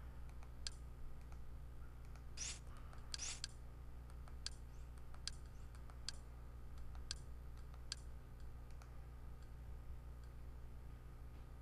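Light button clicks, roughly one a second, as a menu is navigated, with two short scratchy rustles between two and three and a half seconds in, over a steady low hum.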